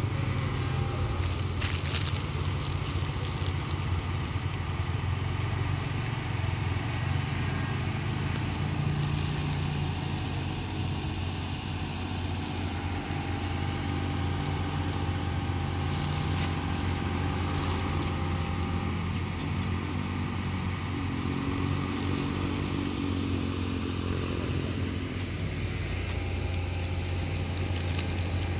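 Excavator's diesel engine running at a steady, unchanging drone, with a few short crackling clicks and scrapes of rock and earth.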